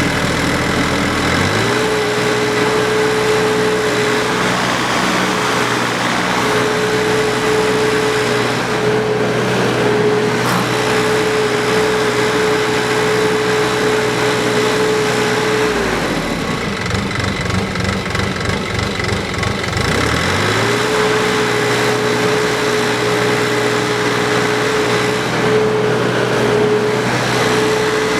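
Mini excavator's diesel engine throttled up from idle to a steady high speed about two seconds in. It drops back to idle for about four seconds a little past halfway, then runs up to high speed again and holds there.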